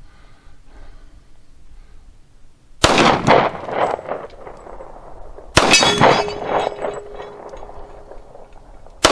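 Thompson Auto-Ordnance 1911 pistol firing .45 ACP: two shots about three seconds and five and a half seconds in, with a third just as it ends, each echoing. After the second shot a steel target plate rings with a steady tone for a couple of seconds.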